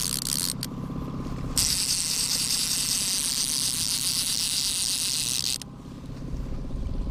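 A trolling reel being wound, a steady rattling whir lasting about four seconds that stops abruptly. Under it a boat's outboard motor runs steadily at trolling speed.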